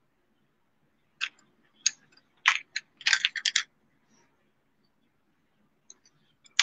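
Graphite pencil scratching across sketchbook paper in short separate strokes, then a quick run of strokes about three seconds in.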